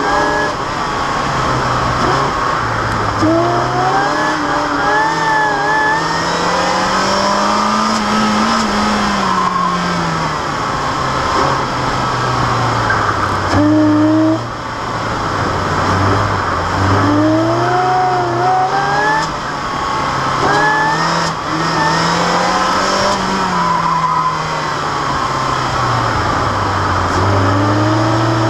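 Supercharged 1.8-litre four-cylinder of a 2000 Mazda Miata with a Jackson Racing M45 supercharger, driven hard through an autocross run: the revs climb and drop again and again, with a higher supercharger whine rising and falling alongside the engine note.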